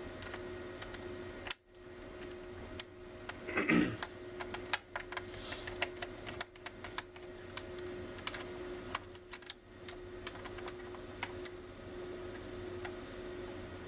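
Irregular light clicks and taps of a screwdriver and small screws being worked on a laptop's plastic screen lid and hinges, with a louder clatter about four seconds in.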